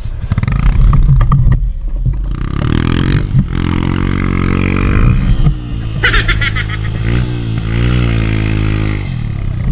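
Small motorcycle engines running off-road, their pitch rising and falling repeatedly as the throttle is worked.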